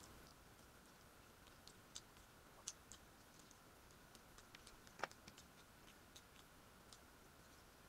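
Faint eating sounds: scattered soft clicks from chewing and from fingers picking at food in a foil tray, with one sharper click about five seconds in.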